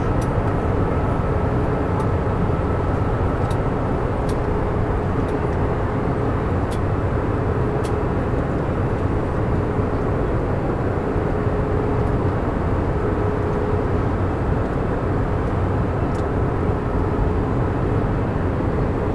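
Passenger airliner cabin noise: the steady roar of engines and rushing air with a faint steady hum through it. A few faint clicks now and then.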